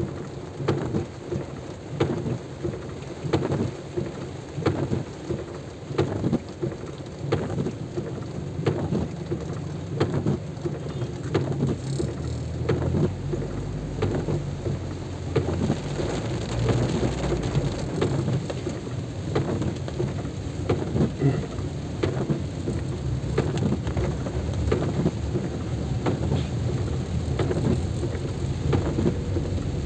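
Heavy rain with many drops tapping close by in quick, irregular ticks, over a low rumble that grows stronger about halfway through.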